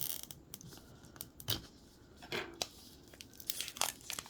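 Small plastic wrappers on Mini Brands miniatures being torn open and crinkled by hand: a few scattered crackles, then a denser run of crinkling near the end.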